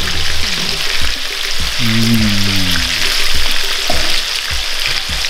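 Meatballs sizzling steadily in hot oil in a frying pan while they are turned over with a metal fork, with soft knocks of the fork and meatballs against the pan. A brief low held note sounds about two seconds in.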